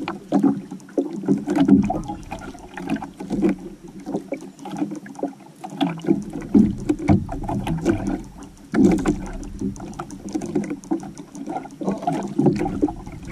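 Water slapping and sloshing against the hull and floats of a small outrigger canoe, uneven in loudness, with many small irregular knocks.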